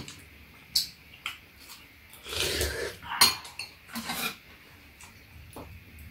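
Metal spoons and chopsticks clicking and scraping against ceramic bowls during a meal, in scattered single clinks a second or so apart.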